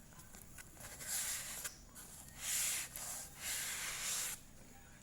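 Packaging being handled: four bursts of rustling and rubbing, the longest near the end.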